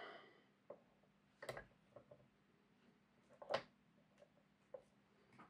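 A few faint clicks and taps as a small metal locomotive chassis is handled and set between the poles of a magnet remagnetiser, the loudest about three and a half seconds in, against near silence.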